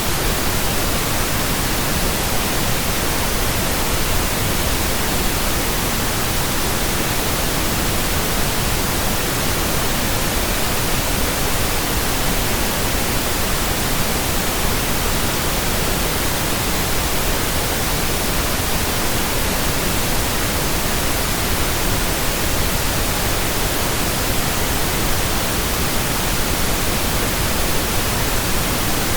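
Steady pink noise: an even, unchanging hiss like a radio not tuned to a station.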